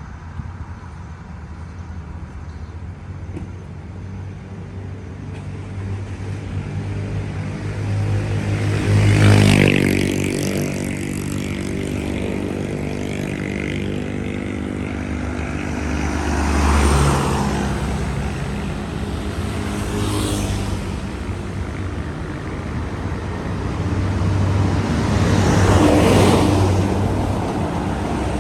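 Road vehicle engines running, with the sound swelling and fading three times, about eight seconds apart, as vehicles pass close by.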